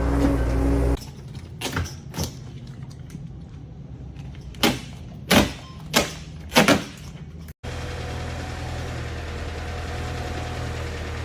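A steady low machine drone that cuts off abruptly about a second in, followed by a quieter stretch with about six sharp knocks. After a brief dropout, another steady low machine drone runs on.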